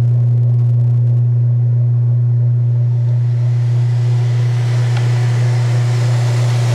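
1986 Kenmore 60 Series direct-drive washer in neutral drain: the motor and drain pump running with a steady, even hum as the tub pumps out before spin.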